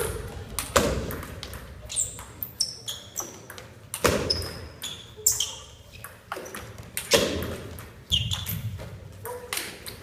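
Table tennis rally: the ball knocking off the rackets and bouncing on the table, sharp hits roughly a second apart that echo in a large hall.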